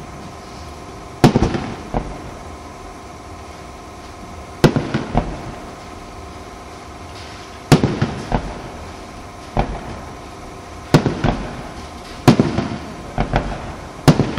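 Aerial fireworks shells bursting overhead: about eight sharp bangs, one to three seconds apart, each followed by a short run of smaller pops and a fading echo. Several bursts come close together near the end.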